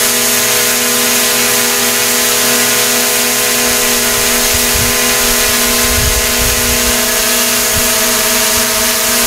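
Quadcopter drone's motors and propellers buzzing at a steady pitch, loud.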